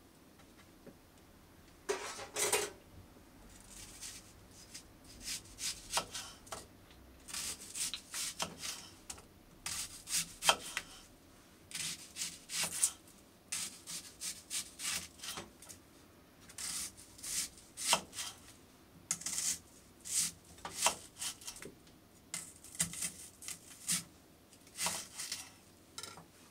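Raw chicken breasts in a pot being salted and rubbed by hand: short irregular rasping rubs, about one or two a second.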